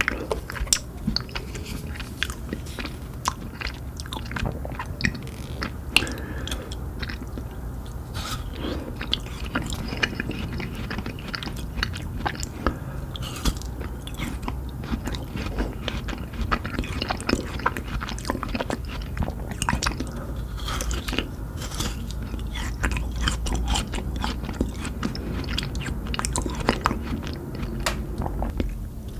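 Close-miked eating sounds of ice cream: steady biting and chewing with many small, irregular crunches.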